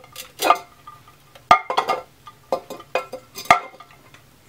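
Glazed ceramic pet-fountain lid and bowl clinking and knocking as they are handled, a string of short, sharp knocks roughly once a second with light rustling between them.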